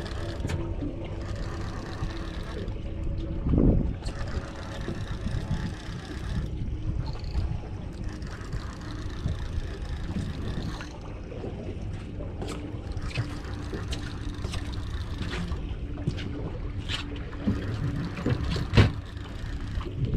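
Boat engine running steadily under wind and water noise, with scattered small knocks and two louder thumps, one a few seconds in and one near the end.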